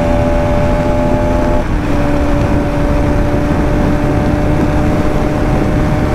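Bajaj Pulsar NS200's single-cylinder engine running steadily under way, with heavy wind noise on the microphone. About a second and a half in, the engine note breaks briefly and settles a little lower, like an upshift.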